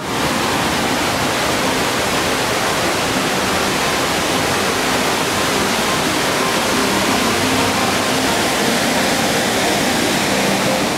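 Whitewater of the Throne Room, a class V rapid on the Futaleufu River, rushing as a steady, dense roar of water that cuts in suddenly.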